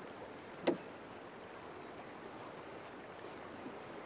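A single sharp knock about two-thirds of a second in, over steady low background noise.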